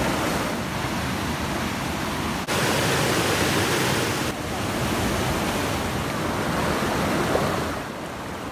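Rushing water of a rocky jungle stream, a steady loud hiss. It jumps louder abruptly about two and a half seconds in and eases off somewhat near the end.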